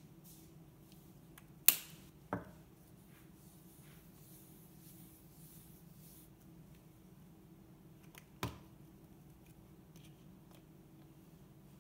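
Plastic glitter shaker containers being handled: three sharp clicks and taps, two close together about two seconds in and one more near the end, with a faint rustle of glitter being shaken out in between.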